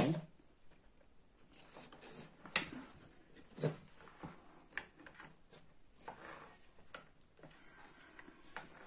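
Scattered light clicks and knocks of a water purifier's circuit board and its wiring being turned over and handled on a wooden workbench, the sharpest about two and a half and three and a half seconds in.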